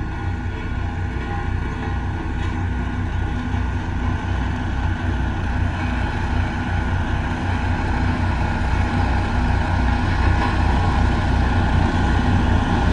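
Heavy construction machine's engine running steadily with a low, even throb, slowly growing louder.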